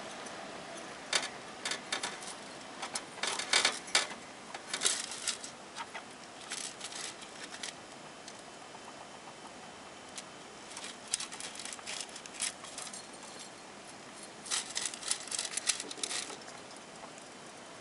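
Hamster scrabbling about its wire cage: several bursts of light clicking and rattling with short quiet gaps between.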